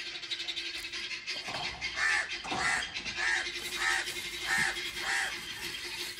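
A crow cawing again and again: about six short calls, a little over half a second apart, starting about two seconds in, over a faint steady hum.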